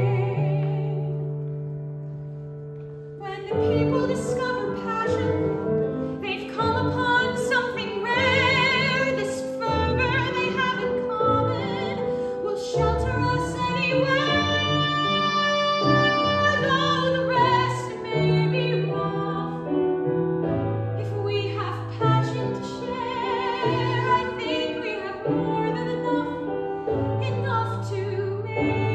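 A show tune from a stage musical: a woman singing in a classical style with vibrato over a sustained instrumental accompaniment.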